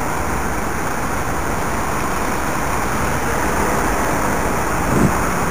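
Steady noise of queued city-centre traffic: car and bus engines running and tyres rolling slowly past at close range. A brief low thump comes near the end.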